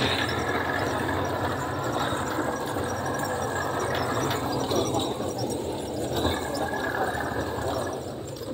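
Jeep engine running steadily under load as the jeep crawls over a rough, rocky mountain track, heard inside the cab with a continuous low rumble. Rattles and squeaks from the body and suspension jolting over the rocks run through it.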